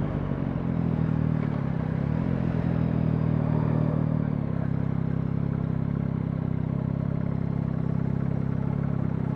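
Yamaha MT-09's three-cylinder engine running at low revs while the bike rolls slowly in town traffic. The note is steady and settles slightly lower about four and a half seconds in.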